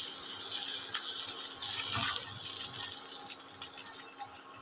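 Basmati rice and prawns sizzling as they fry in a nonstick pan, turned with a silicone spatula that gives a few soft scrapes and taps. The sizzle is a steady hiss that slowly fades.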